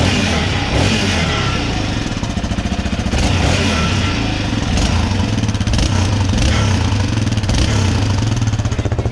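Yamaha Raptor 700 ATV's single-cylinder engine running steadily at low revs through its exhaust, with a rattle that the riders place inside the muffler.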